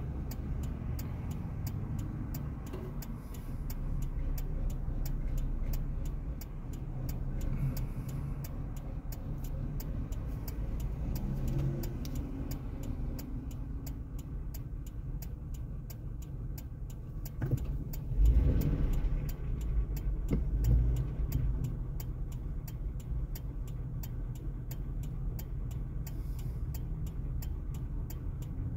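Turn-signal indicator clicking steadily inside a stopped car's cabin over a low engine and traffic rumble. A vehicle passes close and loud about eighteen seconds in.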